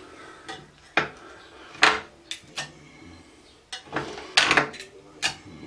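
A hand tool scraping and clinking against a metal table saw top in a series of short, irregular strokes, with a longer scrape about four seconds in.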